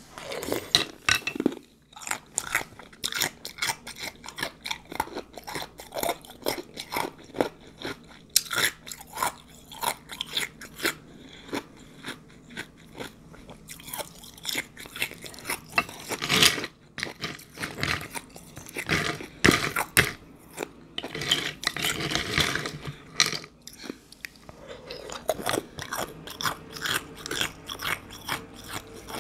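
Close-up crunching and chewing of ice with juice: a rapid, continuous run of sharp crunches as the ice is bitten and chewed.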